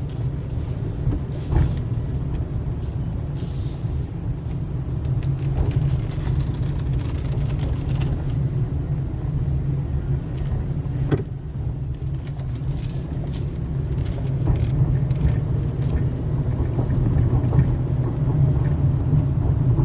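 Car driving, heard from inside the cabin: a steady low engine and road rumble, with a brief sharp tick about eleven seconds in.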